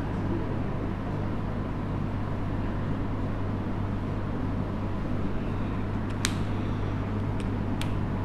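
Steady low hum with even background noise, like a fan or air conditioner running in a small room. A few short, faint squeaks of a marker being drawn on a whiteboard come near the end.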